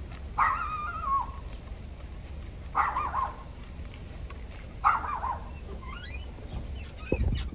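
Small white dog giving three drawn-out, wavering barks about two seconds apart, over a low steady rumble. A dull thump comes near the end.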